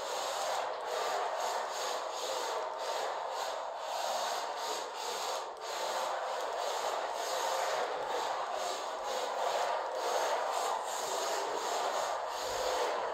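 DriftArt DA3 micro RC drift car sliding across a laminate floor: a steady rasping hiss of its drift tyres scrubbing the boards and its small drivetrain running, with faint ticks throughout.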